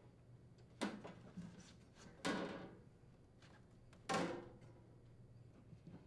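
Sheet-metal cabinet of a window air conditioner being shifted and set into alignment on the chassis, giving three clunks over a few seconds; the middle one rings briefly.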